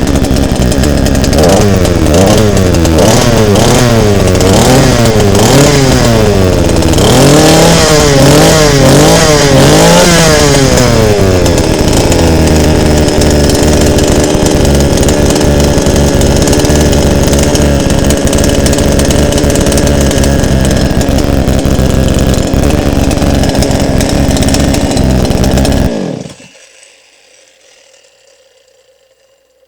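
The 52 cc two-stroke engine of a Forte FGS 52-52 petrol chainsaw on a test run. It is revved up and down over and over for about ten seconds, then runs at a steady speed. Near the end it is switched off and stops abruptly.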